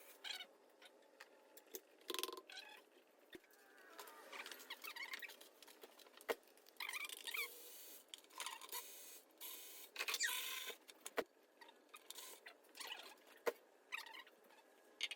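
Faint, irregular clicks, clinks and short scrapes from hand tools and metal engine parts being handled, with a few sharper knocks.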